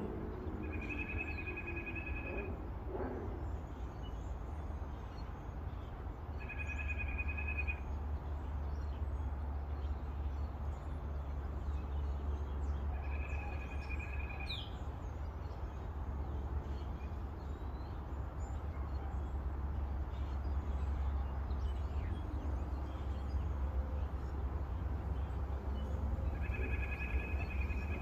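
A bird repeating the same trilled call four times, each about a second and a half long, at intervals of roughly five to thirteen seconds, over a steady low rumble.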